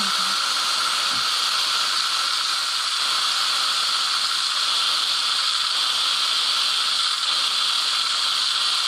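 Instant Pot electric pressure cooker venting steam through its release valve in a quick pressure release, with a towel draped over the valve: a loud, steady hiss.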